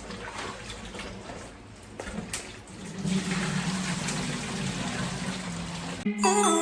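Tap water running while rice is being washed in a pot. Just before the end the water cuts off and a short chiming music jingle begins.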